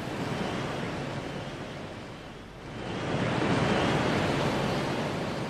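Sea surf mixed with wind on the microphone: a steady rushing noise that swells louder about three seconds in.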